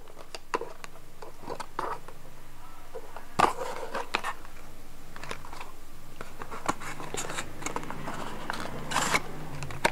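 Cardboard perfume box being opened by hand: scattered rustles and light clicks of the flaps and packaging, louder about three and a half seconds in and again near the end.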